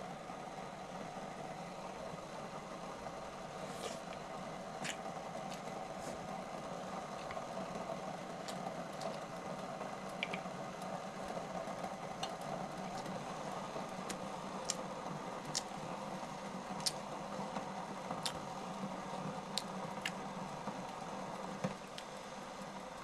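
Shabu-shabu broth simmering steadily in a hot pot on its burner, a continuous low rumble, with scattered light clicks of chopsticks against bowl and pot and small eating sounds.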